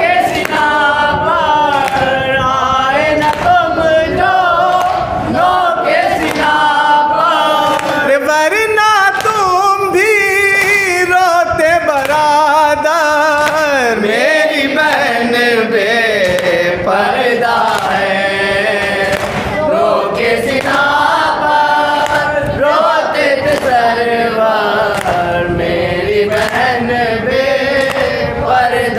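Men's voices chanting a noha, a Shia mourning lament in Urdu, sung by a reciter into a microphone.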